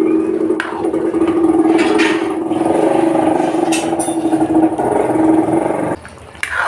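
A motor or engine running steadily with a rough hum, cutting off suddenly about six seconds in.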